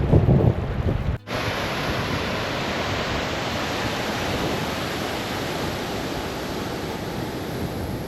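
A steady, even rush of flowing water that begins abruptly about a second in, after a short low rumbling stretch.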